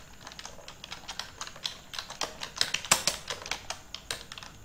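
Typing on a computer keyboard: a quick, irregular run of key clicks as a word is typed.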